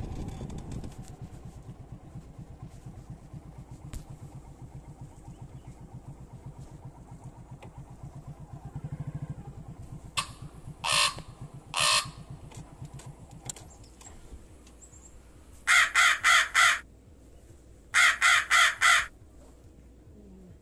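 Motorcycle engine idling with an even low putter that shuts off about two-thirds of the way through. Over it a crow caws loudly: two single caws, then two quick runs of four.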